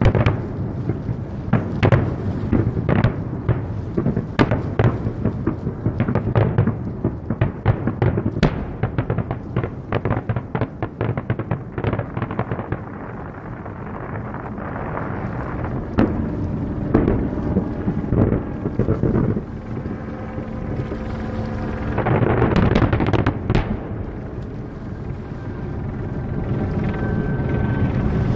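Aerial firework shells bursting in quick succession, a dense run of bangs and crackles that thins out about halfway through into a few scattered bursts.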